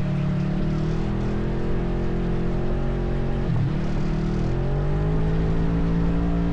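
ATV engine running under throttle, its note dipping sharply about halfway through and then climbing back up.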